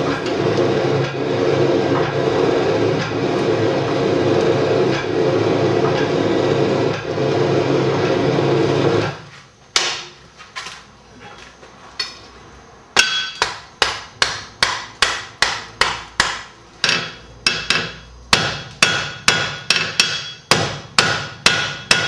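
Forge blower running steadily, then cut off about nine seconds in. A hand hammer then strikes the hot square iron bar on the anvil: one blow, a short pause, then a steady run of ringing blows, two to three a second, squaring the end and drawing down the section for the arrowhead's socket.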